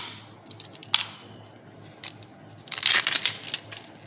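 Product packaging being handled and opened: two sharp clicks about a second apart, then about a second of crackling, crinkling noise near the end.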